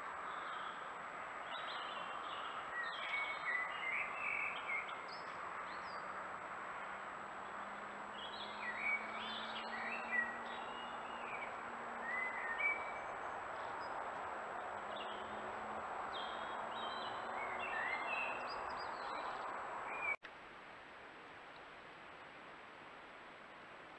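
Songbirds singing in short, varied chirping phrases over a steady hiss. About twenty seconds in the sound cuts off abruptly, leaving only a quieter steady hiss.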